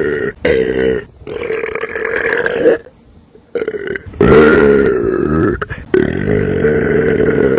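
Human belching: a run of loud, long belches one after another, each lasting up to a second and a half, with short breaks between them and a brief pause near the middle.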